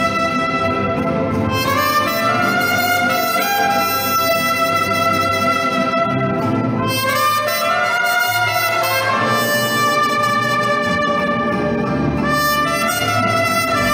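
A mariachi ensemble playing live, with trumpets prominent over violins, guitars and guitarrón. They hold sustained notes and swing into upward runs several times.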